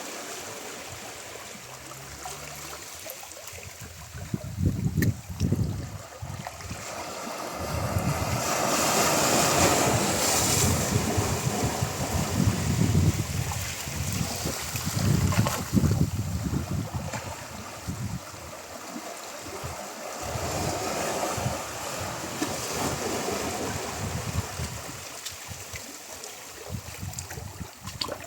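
Ocean surf washing onto a shore in a continuous wash that swells and ebbs every few seconds, with louder surges near the middle.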